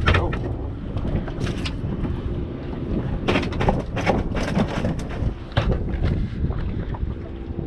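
Wind buffeting the microphone outdoors on a boat, a steady low rumble broken by irregular short knocks.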